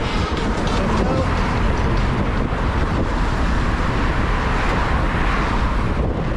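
Steady wind rushing over the microphone of a camera riding on a moving road bike, mixed with road and traffic noise.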